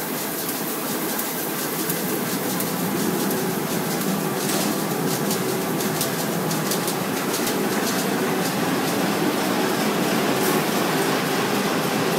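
2006 Komori Lithrone S29 (LS 529+C) five-colour sheet-fed offset press with coater running: a steady mechanical din with quick, fine clicking throughout.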